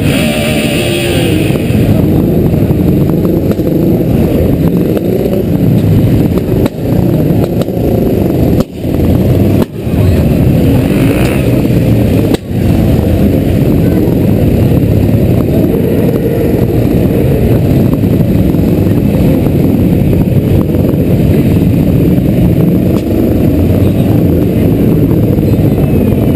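Motorcycle engines running at low speed in a slow column, heard from a helmet-mounted camera: a loud, steady low engine sound, with a few sudden short dips in level between about 7 and 12 seconds in.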